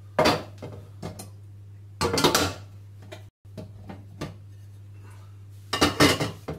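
Dishes and cutlery clattering as they are handled and set down, in three bursts of clinks, the loudest about two seconds in and near the end.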